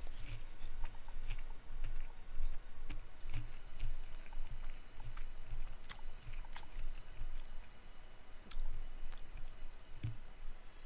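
A person chewing a bite of fried chicken sandwich with Cheetos in it, a steady run of soft chews about two a second.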